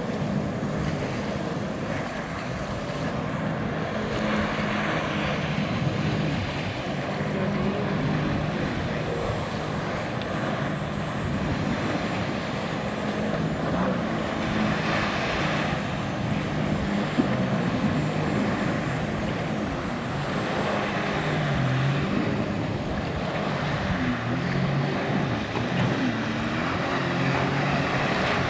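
Jet ski engine running at changing revs as it carves turns, its pitch rising and falling, over a steady wash of wind and water.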